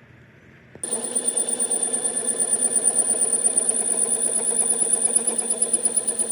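A power tool switches on abruptly about a second in and runs steadily with a high whine and a fast rattling chatter, as in metal-cutting or grinding work on the excavator's boom pin bore.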